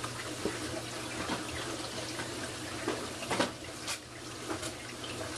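Steady rush of aquarium water running and splashing, over a low steady hum, with a couple of sharp clicks about three and a half and four seconds in.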